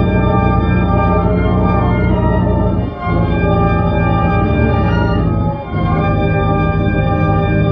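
Sustained organ-like drone of held chords, loud and steady. It breaks briefly about three seconds in and again about five and a half seconds in, then resumes.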